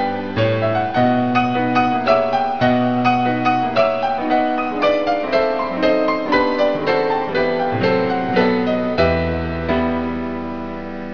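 Slow, gentle solo piano music: a melody of single notes about two or three a second over low bass notes, ending about nine seconds in on a held low chord that slowly fades.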